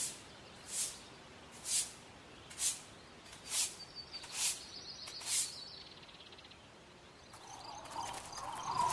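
Footsteps walking at a steady pace, seven steps a little under a second apart, over faint bird chirps. Near the end an eerie ambience swells in, carrying a steady tone and small scattered clicks.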